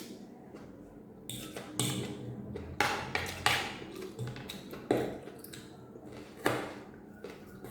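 Cutlery clinking and scraping on a plate while eating noodles: several sharp clinks, unevenly spaced, a few with a brief ring after them.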